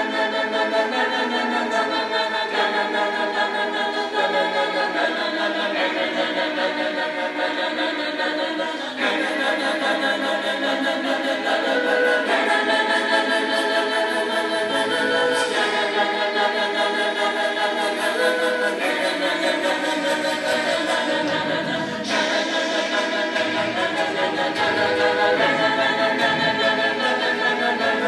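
A cappella vocal group singing a song, several voices in harmony with no instruments.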